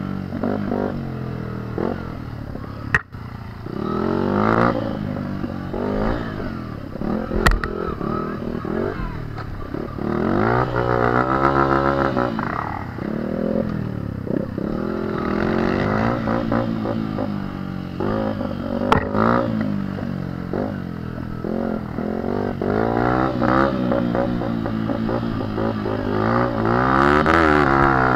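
Dirt bike engine running and revving up and down repeatedly as it is ridden along a rough trail. A few sharp knocks cut through, about three seconds in, around seven seconds and again near nineteen seconds.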